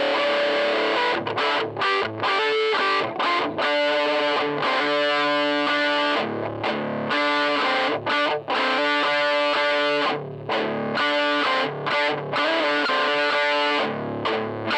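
Distorted electric guitar, a Michael Kelly Patriot Custom, played through a Joyo crunch distortion pedal into a Fender tweed Deluxe (5E3) copy amp. It plays a chordal riff of ringing chords with short stops between phrases.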